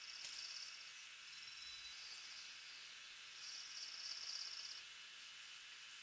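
Faint steady hiss of a Hi8 camcorder recording, with three bursts of high-pitched buzzy trilling, each about a second long, and a brief click just after the start.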